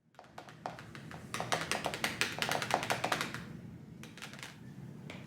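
A quick run of light taps and clicks from fingers picking at a sealed package, thinning out to a few scattered clicks after about three and a half seconds.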